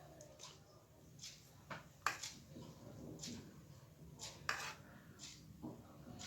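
Faint kitchen handling sounds: a string of light clicks and scrapes of a utensil against a dish or baking tray while filling is spread into it, over a low steady hum.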